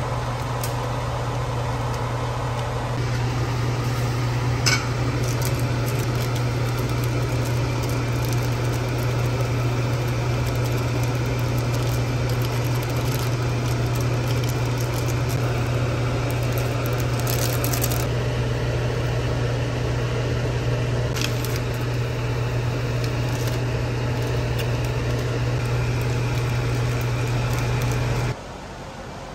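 Steady low hum of a running kitchen appliance with a noisy hiss over it while instant ramen cooks on the stove, broken by a few light clicks and clinks. The hum cuts off abruptly about a second before the end.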